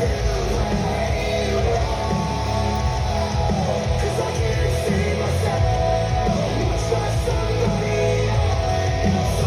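Rock music with a singer and guitar over a steady, heavy bass.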